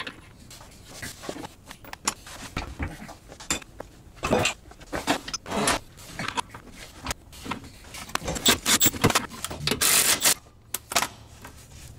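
Metal clinking and knocking as a bolt is handled and threaded into a shock mount under a car. Near the end a Milwaukee cordless ratchet runs in a few short goes, driving the bolt in.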